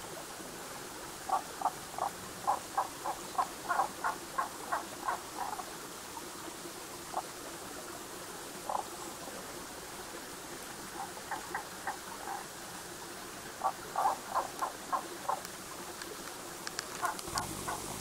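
Tago's frogs calling: short runs of quick, evenly spaced notes, about four a second, with a few single notes between the runs, over the steady rush of a small mountain stream.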